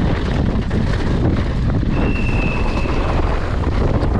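Wind buffeting the microphone as a loud, steady rumble and rush. About halfway through, a thin, steady high tone sounds for about a second.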